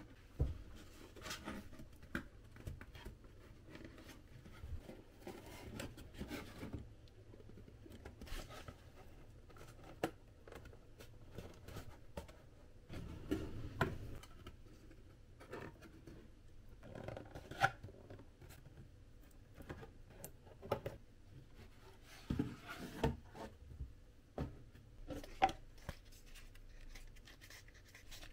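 Corrugated cardboard pieces being folded and handled by hand: irregular rustling and rubbing with scattered short crackles and taps.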